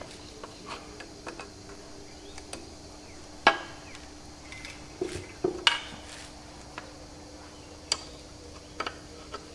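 Adjustable spanner clinking and clicking on the throwout fork bolts as they are undone inside a tractor gearbox's bell housing. Scattered sharp metal clinks with gaps between, the loudest about three and a half seconds in and a short cluster around five seconds in, over a faint steady hum.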